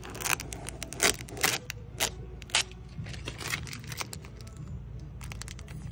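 Clear plastic transfer tape crackling and snapping in irregular bursts as it is peeled off vinyl registration letters and handled, the crackles thinning out in the second half.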